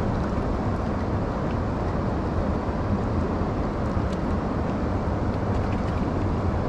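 Steady rush and rumble of fast-moving water in the spillway outflow below a dam.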